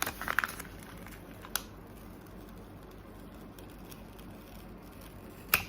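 Light handling sounds of a small plastic toy and stickers: a few soft rustles and clicks at the start, a single click about a second and a half in, and a sharper click near the end, against quiet room tone.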